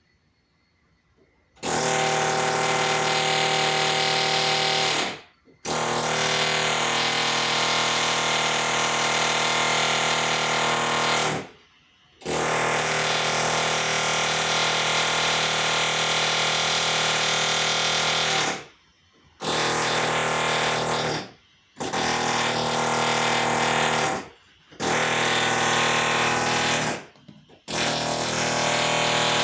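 Loud, harsh machine-like noise with a steady underlying hum. It starts abruptly about two seconds in, then cuts out and restarts several times in stretches of a few seconds each.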